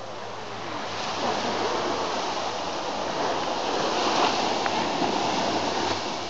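Surf washing onto a beach: a steady rush of waves that swells to a peak about four seconds in, then eases.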